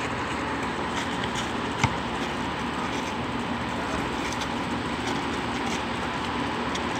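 A basketball thuds once, sharply, on the concrete court about two seconds in, with a few faint short taps of play, over a steady background hum.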